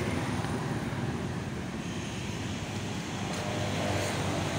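Steady street traffic noise from passing vehicles.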